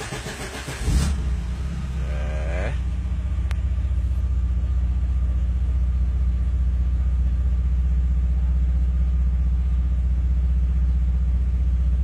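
A car's starter motor cranking for about a second, then the engine catches and settles into a steady idle, with a short rising whine about two seconds in.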